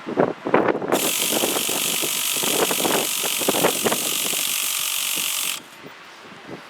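Electric starter cranking the Traxxas Revo 3.3's rebuilt nitro engine, a steady whir with irregular mechanical rattling, without the engine catching. The cranking cuts off suddenly about five and a half seconds in.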